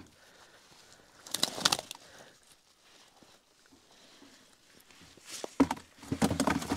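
A wet fishing keepnet rustling and dripping as it is handled, then a run of knocks and thuds near the end as the fish are tipped out and flap in a bucket.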